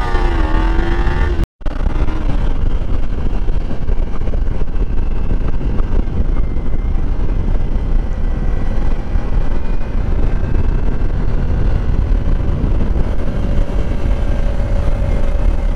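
Wind buffeting the microphone on a moving Kawasaki Ninja-style sport motorcycle, with the bike's engine running steadily underneath. The sound cuts out completely for a moment about a second and a half in.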